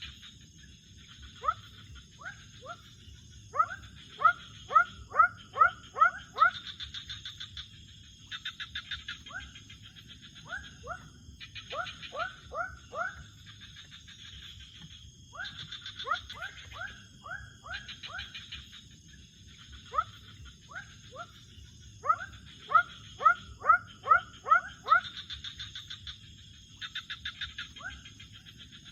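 Night chorus of calling animals, most likely frogs and insects. Loud runs of short rising chirps come several a second in bursts, over pulsing trills and a steady high insect whine, with a low even rush of fast river water underneath.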